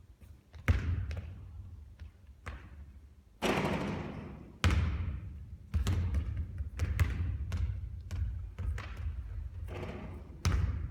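Basketball bouncing and thudding on a hard court, a string of sharp impacts that come closer together in the second half, with a longer rushing sound about three and a half seconds in.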